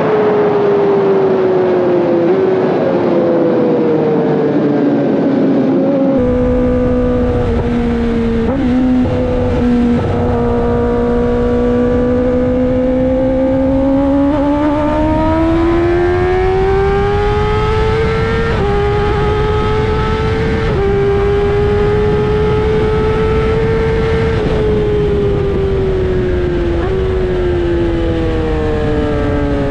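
Kawasaki ZX-10RR's inline-four engine running under way, its pitch sliding down over the first few seconds, then climbing slowly and easing off again, with several brief dips. A low rush of wind noise comes in about six seconds in and stays.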